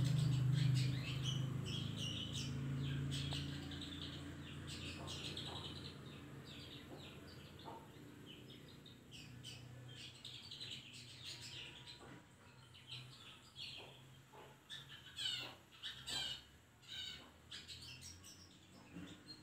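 Long-tailed shrike (cendet) singing a rapid chattering run of short chirps and harsh notes, thicker and louder in the second half. A low hum is heard under the song at the start and fades away over the first few seconds.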